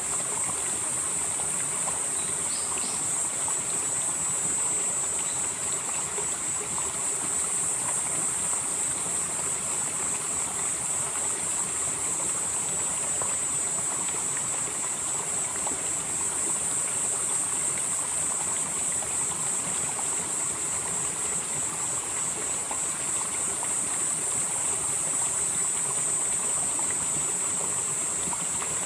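Valley stream flowing steadily, with a continuous high-pitched insect drone above the water that swells and fades every few seconds.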